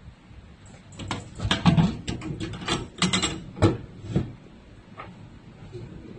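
Steel M2A1 .50 cal ammo can's latch snapped open and its lid swung up, giving a run of sharp metal clicks and clunks between about one and four seconds in.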